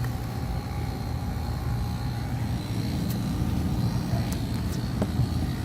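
Steady low mechanical rumble, with a faint steady hum in the first half and a few light clicks near the end.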